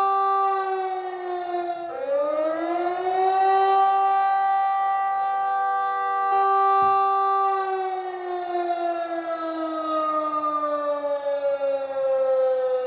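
A siren wailing in several tones at once: its pitch dips and climbs back about two seconds in, holds, then slowly slides down through the second half.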